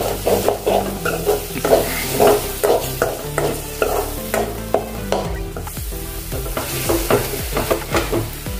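A spoon stirring and scraping a thick spice masala frying in oil in a pan, with a light sizzle under the strokes; the scrapes come about twice a second.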